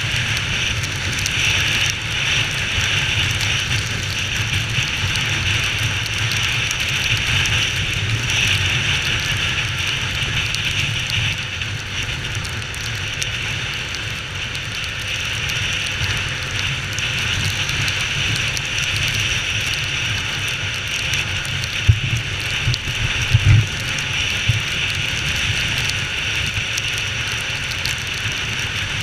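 Honda XR 250 Tornado's single-cylinder engine running while riding, under a steady hiss of heavy rain. A few brief knocks come about three-quarters of the way through.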